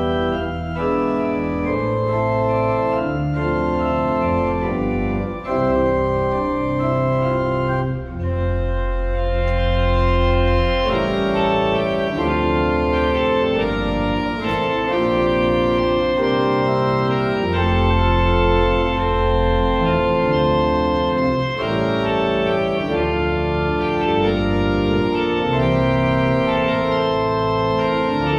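Church organ playing a slow piece of held chords that change every second or so, with deep pedal bass notes sounding under parts of it.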